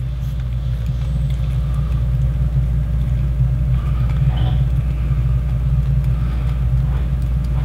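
A steady low rumble that grows slightly louder, with a few faint light clicks about halfway through.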